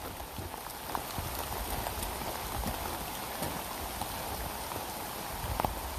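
Steady hiss of light rain falling on the leaf-covered forest floor, with a few light clicks of footsteps on the wet rocky trail.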